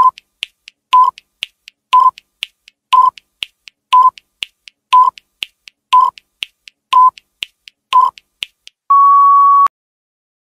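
Electronic countdown timer: nine short beeps, one a second, with fainter quick ticks between them, then one longer, slightly higher tone near the end that cuts off suddenly as the count runs out.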